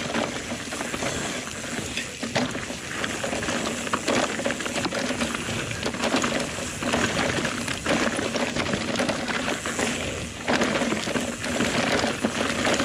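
Mountain bike descending a rocky trail at speed: tyres crunching and rumbling over rock and loose stones, with a running clatter of small knocks from the bike, and wind noise on the camera microphone.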